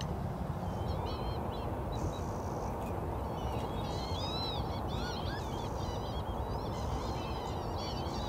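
A flock of northern lapwings calling: many short overlapping calls that rise and fall, starting about a second in and busiest in the middle, over a steady low rushing background.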